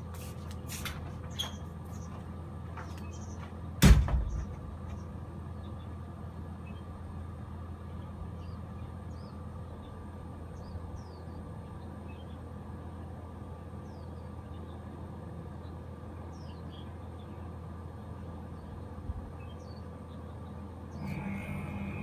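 Steady low hum of a running air-conditioner outdoor unit, with one sharp knock about four seconds in. Near the end a Mitsubishi Heavy Industries split-type air-conditioner outdoor unit starts up: a louder low hum comes in together with a steady high-pitched tone.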